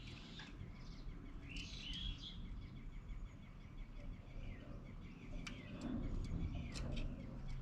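Birds chirping in short calls, with a quick run of evenly spaced notes in the first few seconds and a few sharp clicks later, over a steady low hum.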